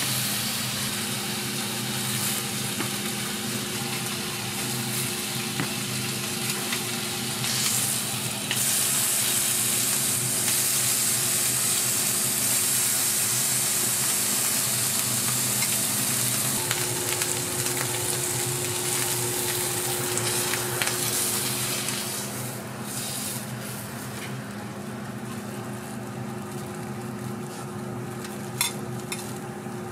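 Bacon strips sizzling on a flat-top griddle, a steady frying hiss that grows louder about eight seconds in and eases off a little after about twenty-two seconds, over a steady low hum. A few sharp clicks near the end.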